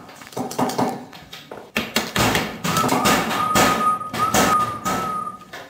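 Knocks, thuds and rustling of a handheld camera being handled and moved. About halfway in, a single steady high tone is held for roughly three seconds.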